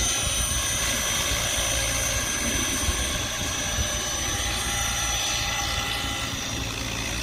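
Logo 690 electric RC helicopter in flight: a steady high motor whine over a low rotor drone. The highest whine fades out about five seconds in.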